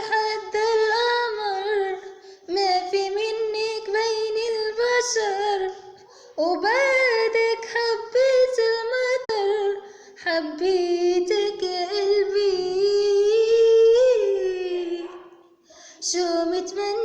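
A girl singing an Arabic song unaccompanied, in long phrases broken by short pauses for breath, holding some notes and sliding and turning between pitches.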